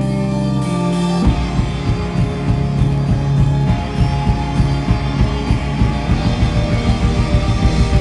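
Live rock band with electric guitars and a drum kit playing loud. Held guitar chords ring for about the first second, then the drums and the full band come in together with a fast, driving beat.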